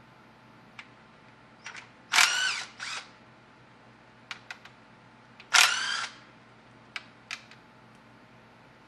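A power ratchet whirring twice in short spurts, about two seconds in and again at five and a half seconds, spinning out transmission pan bolts, with faint clicks in between.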